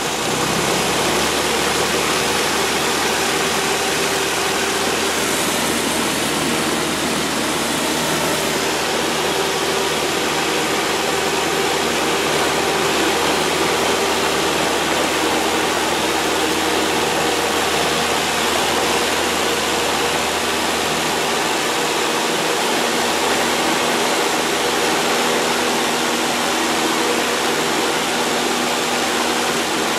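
A 1960s four-seat light airplane's piston engine and propeller, heard inside the cabin in flight: a loud, steady drone that rises slightly at the very start and then holds even.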